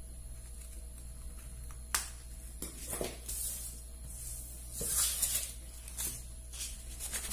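Scissors cutting a folded kraft-paper pattern, then stiff paper rustling as it is handled: a sharp click about two seconds in, a few short snips and scrapes, and a brief rustle about five seconds in.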